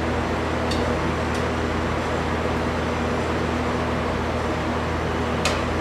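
TIG welder running, its arc giving a steady buzzing hum and hiss, with a few faint ticks.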